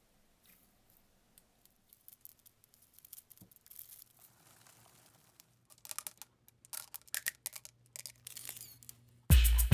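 A big batch of slime being squished and stretched by hand: sparse sticky clicks at first, then a busier run of crackling, popping clicks from about the middle on. Music with a beat comes in suddenly right at the end.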